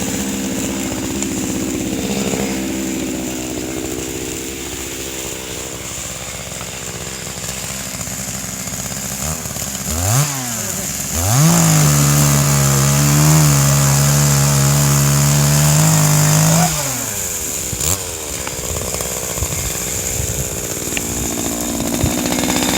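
Chainsaw engine idling. About ten seconds in it is blipped once, then revved high and held for about five seconds before dropping back to idle.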